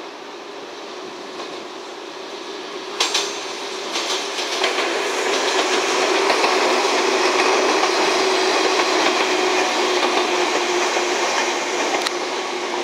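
Three-car train of two Kumoya 145 cars and the original-livery Kuha 117-1 rolling past close by: wheel rumble on the track swells to its loudest in the middle, with a steady tone beneath it and sharp clicks over rail joints about three seconds in and again near the end.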